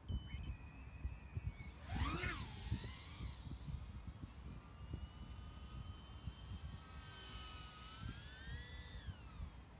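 Brushless motors and propellers of a GEPRC MX3 Sparrow FPV quadcopter: a steady whine at idle just after arming, then a sharp surge and rising whine about two seconds in as it punches off the ground. The whine then glides up and down with throttle and drops away near the end.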